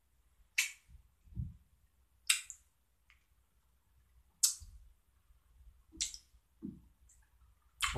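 A mouth chewing a sour gummy candy: a few sharp, wet smacks and clicks of lips and tongue, roughly every two seconds, with soft low thuds of chewing between them.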